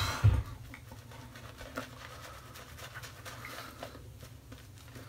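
Shaving brush working a heavy load of lather over a bearded face: a faint, fine crackling of bristles through thick foam. A single low thump sounds near the start.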